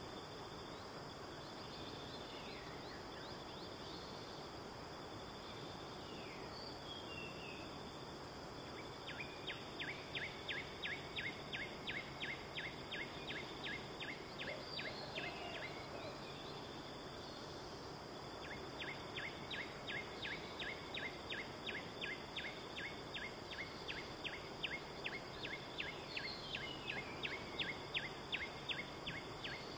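Quiet rural outdoor ambience: a steady hiss with a rapid chirping call, about five pulses a second, in two runs of several seconds each, and a few faint whistled bird notes.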